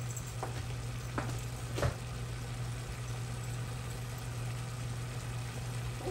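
Hot homemade pan gravy of browned flour, grease and water sizzling and bubbling in a large rectangular pan, over a steady low hum. A few short clicks come within the first two seconds, the third the loudest.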